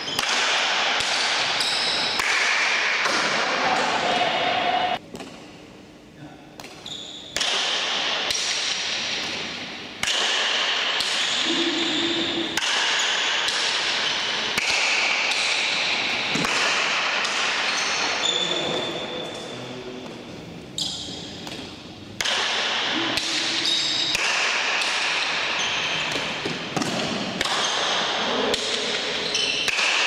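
Rally of Basque pelota paleta: a ball struck by wooden paddles and smacking the front wall, heard as repeated sharp hits that ring on in the reverberant indoor court. Short squeaks run in among the hits, and the play goes quiet briefly twice.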